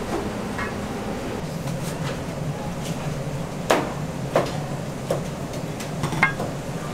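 Kitchen clatter: four sharp knocks and clinks of kitchenware, the loudest about halfway in and another near the end, over a steady low hum.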